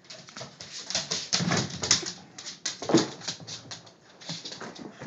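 A dog playing with its rubber Kong toy: a fast, irregular run of clicks, scuffs and knocks, with heavier thumps about a second and a half in and again near three seconds.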